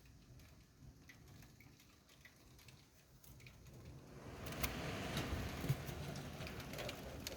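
Thunderstorm rain: scattered raindrops ticking, then a louder rush of rain and wind from about four seconds in, with sharp drop hits over it.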